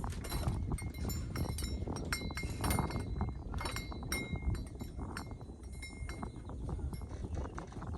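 Irregular clicks and light metallic clinks, some ringing briefly, over a steady low rumble.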